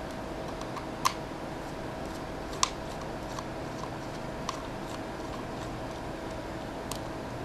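A few sharp light clicks of small hard parts being handled while a laptop hard drive is unscrewed from its enclosure, the two loudest about a second and two and a half seconds in, over a steady low hum.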